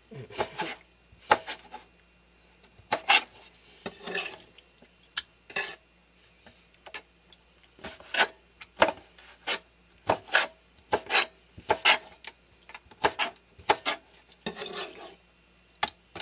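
Kitchen knife slicing raw squid on a plastic cutting board: about two dozen sharp knocks at an uneven pace as the blade comes down through the flesh onto the board, with a couple of longer scrapes of the blade across the board.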